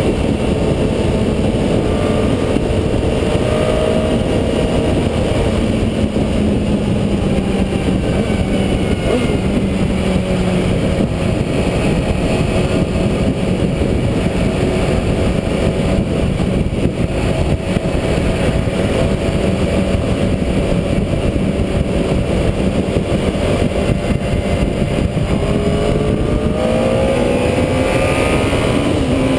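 Honda CBR954RR's inline-four engine running under way, heard from a bike-mounted camera through heavy wind noise on the microphone. Its pitch holds mostly steady, then rises near the end as it accelerates.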